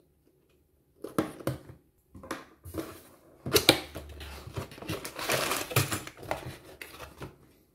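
A craft knife slitting the seal on a cardboard toy box, then the cardboard flaps being pulled open and the box tipped so plastic bags of bricks slide out: scratchy clicks followed by rustling and scraping of cardboard and plastic. About the first second is nearly silent.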